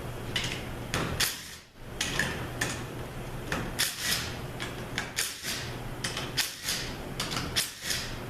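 A string of short, sharp metallic rasps and clicks, a couple of seconds apart and then in quick groups, as the bolts holding the transmission's front pump halves together are backed out with a 1/2-inch socket wrench, over a steady low hum.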